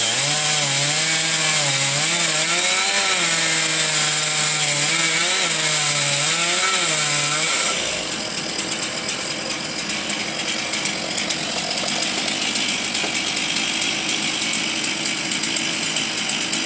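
Chainsaw cutting through a corkscrew willow limb, its pitch repeatedly dipping and recovering as the chain bites. About eight seconds in the high whine stops abruptly, leaving a quieter, rougher engine sound.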